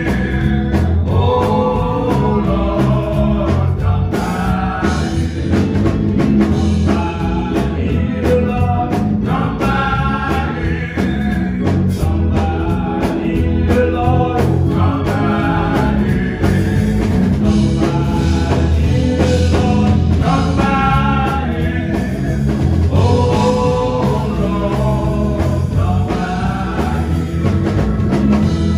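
Male gospel vocal group singing, a lead voice with two backing singers, over steady instrumental accompaniment with bass and drums.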